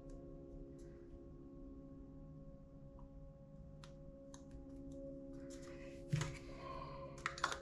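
Soft ambient background music of steady, singing-bowl-like held tones. About six seconds in comes a single knock, then a few sharp clicks near the end, from handling the paint bottles.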